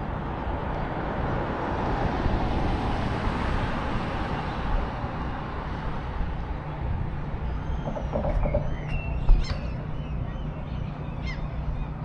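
Traffic noise: a passing vehicle swells and fades over the first few seconds above a steady low rumble. Short bird calls and chirps follow in the second half.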